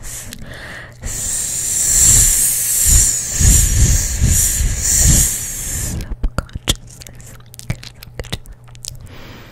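A drawn-out hiss made close into the microphone for about five seconds, then scattered soft mouth clicks from chewing gum.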